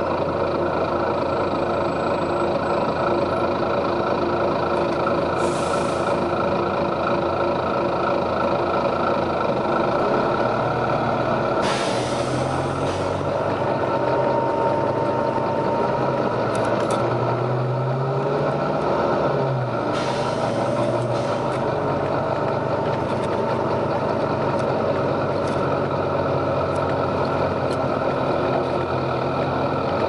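Volvo B9TL double-decker bus heard from inside: the diesel engine drones steadily, its note sliding up and down a little past halfway. The air system lets out three hisses, the longest and loudest about twelve seconds in.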